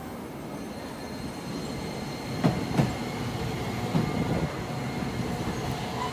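Tokyo Sakura Tram streetcar rolling into the platform, its wheels on the rails giving a low rumble, a thin steady whine and a few sharp knocks about halfway through.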